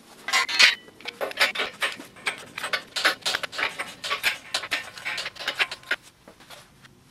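Quick, irregular metallic clinks, taps and rattles of steel tools and parts being handled, with a brief ring of metal about half a second in.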